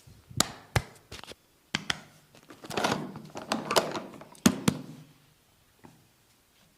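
Massage sounds on a person's head and face: a series of sharp taps and thuds, with a noisy stretch of rubbing about two and a half seconds in and two sharp knocks near the end.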